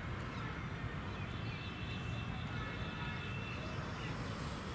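Steady low outdoor rumble, with faint thin high tones for a second or two in the middle.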